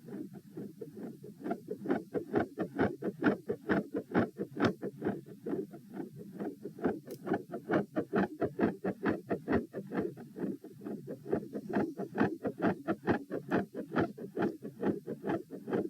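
Recorded human heart sounds beating fast, at about 132 beats a minute, as a steady run of dull thumps several to the second. The uploader labels the recording a third heart sound and a fixed split second heart sound with a murmur, recorded while standing.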